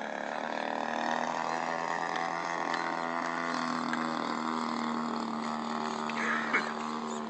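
Radio-controlled model airplane's engine running steadily as the plane flies overhead, growing a little louder about a second in.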